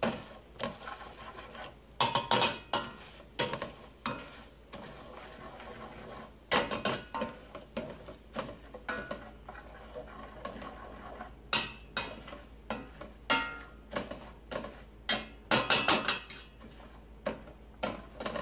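Metal potato masher mashing sautéed onions in a stainless steel frying pan: irregular metal-on-metal clanks and scrapes against the pan, with louder flurries of knocks about two, six and a half, eleven and a half and fifteen and a half seconds in.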